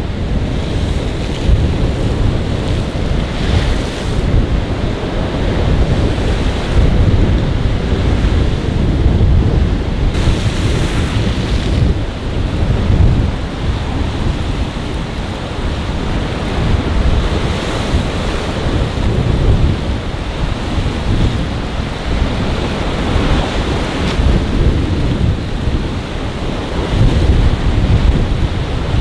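Rough surf breaking and splashing against a jetty in a storm, with strong wind buffeting the microphone; the rushing swells and eases, with louder hissing surges now and then.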